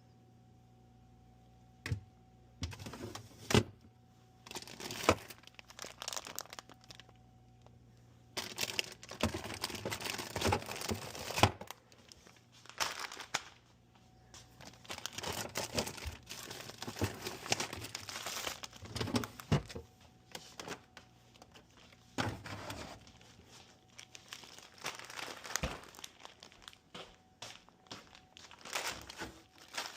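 Crinkling and rustling of packaging being handled during breakfast preparation, starting about two seconds in and going on in irregular spells, with scattered sharp clicks and knocks.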